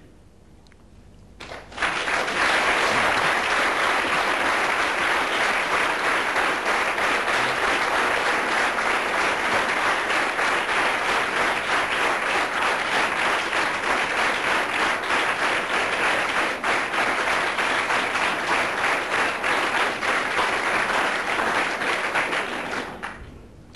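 A large audience applauding in an auditorium, a dense, steady clapping that starts about two seconds in and dies away near the end.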